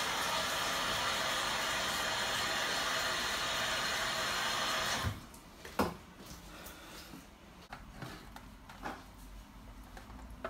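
Kitchen tap running over hands being washed in a stainless steel sink, shut off suddenly about halfway through; then a few light knocks and clicks.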